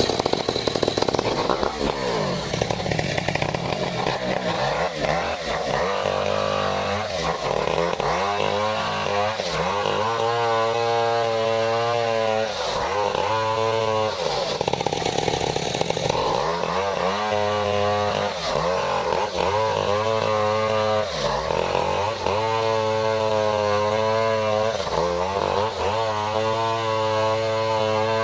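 Stihl 070 two-stroke chainsaw running at high revs while ripping through a durian trunk, its engine note dropping and climbing back every few seconds as it bogs under the cut and recovers.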